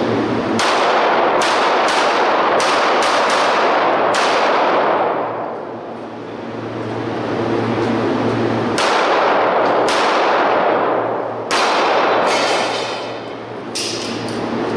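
Handgun shots in an indoor range, each ringing with heavy echo: a quick string of about seven or eight shots in the first four seconds, a lull of a few seconds, then several more spaced shots from about nine seconds in.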